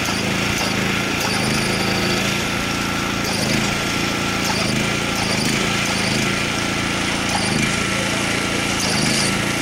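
Lure-coursing machine motor running steadily as it drags the lure line around the course, with a faint high ticking that repeats about once a second.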